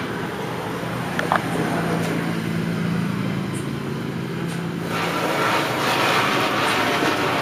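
Ground firework, lit by hand, catching about five seconds in and spraying sparks with a steady hiss that gets louder. Before it catches, a low steady hum.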